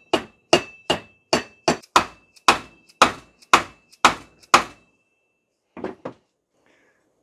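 A mallet tapping repeatedly on a plastic pipe slipped over a Century Centurion B1000 pool pump motor's shaft, seating the end housing onto its new bearing. There are about ten steady strikes, roughly two a second, with a faint ringing behind them. They stop about four and a half seconds in, and two lighter knocks follow.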